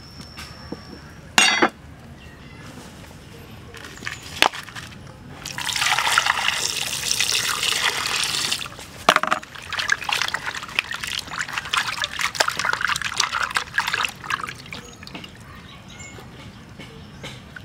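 A cleaver chops once into a raw pig leg on a wooden block, with a couple of lighter knocks after it. Then water pours steadily into a metal pan for about three seconds, and splashes and sloshes unevenly as the pig leg is washed by hand in it.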